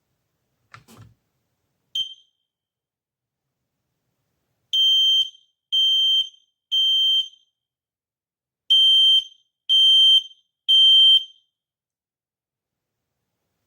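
AEGISLINK SC200 combination smoke and carbon monoxide alarm sounding: a single short beep, then two groups of three loud, high-pitched beeps of about half a second each, with a pause of about a second and a half between the groups. This three-beep pattern is the smoke or fire alarm signal, as opposed to the four-beep carbon monoxide signal. A faint knock comes about a second in, before the first beep.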